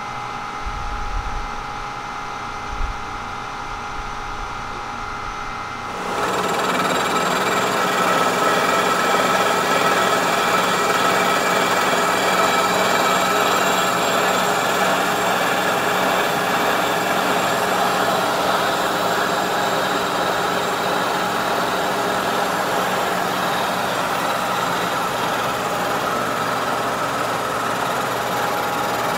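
Kearney & Trecker horizontal milling machine running a 3.5-inch high-speed-steel shell mill through a 0.045-inch finishing cut on a cast-iron face. Steady machining noise that jumps much louder about six seconds in.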